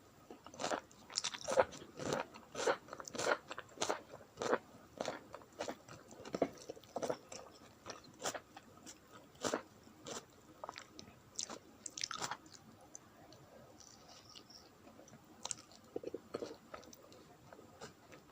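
Close-miked eating sounds: wet, smacking chewing and biting of a rice-and-curry meal, with irregular crisp clicks about twice a second that thin out in the last few seconds.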